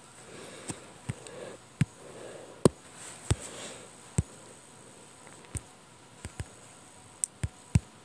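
Irregular taps on a tablet touchscreen, about a dozen short, sharp clicks spaced unevenly.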